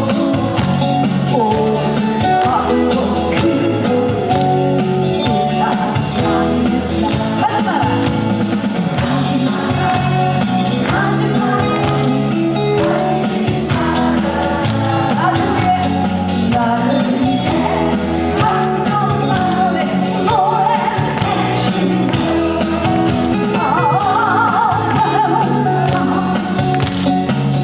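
A trot song sung by a woman over loud musical accompaniment with a steady beat.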